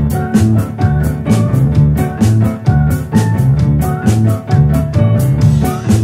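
Band music: drums keeping a quick, steady beat under electric bass and guitar, in a rock style.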